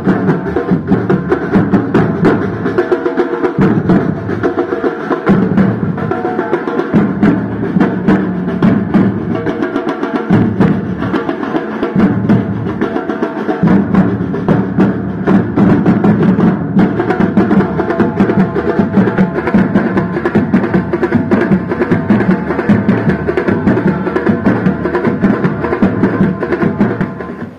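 Loud percussion music with fast, continuous drumming. It cuts off abruptly at the end.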